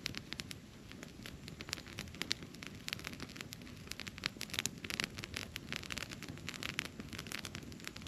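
Wood campfire burning, with dense, irregular crackles and pops over a steady low rumble of the flames.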